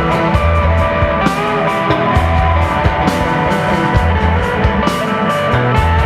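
Instrumental desert rock played live on electric guitar, bass guitar and drum kit: sustained guitar tones over a moving bass line, with frequent cymbal hits.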